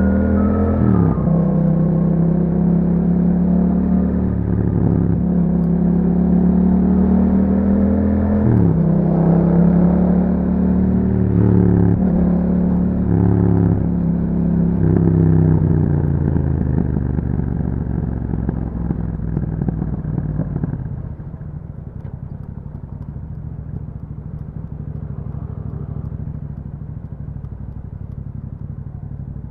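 A 2021 Yamaha MT-07's parallel-twin engine through an Akrapovic exhaust, accelerating through the gears, with the engine note dropping sharply at each upshift. After about twenty seconds the rider eases off and it settles to a quieter, steady low-rev note.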